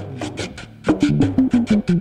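Background music with a steady beat and a low melodic line that steps down in pitch over the second half.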